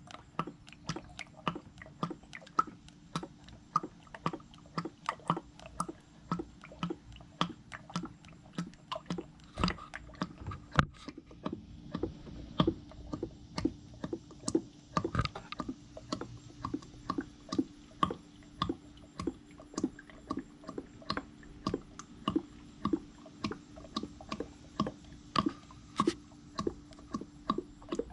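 Motor oil glugging out of a 5-litre jug into an engine oil funnel: a steady run of short gurgles, about two or three a second, as air bubbles back into the jug.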